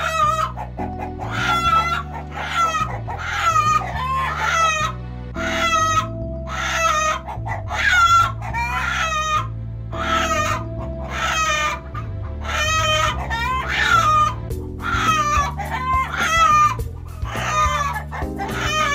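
Novelty background music: a stepping bass line with chicken clucks and squawks repeating in time to its beat.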